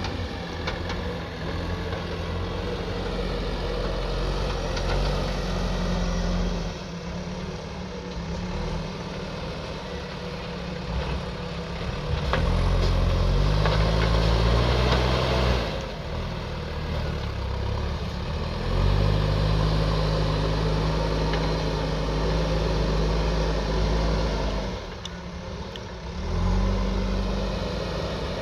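JCB backhoe loader's diesel engine working, rising in pitch and loudness under throttle several times and settling back in between, the longest and loudest stretches in the middle and second half.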